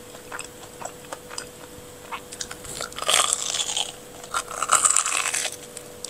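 Crunchy bites into a crispy-coated corn dog: a few small crackles, then two loud crunching bites, the first about three seconds in and the second about a second later.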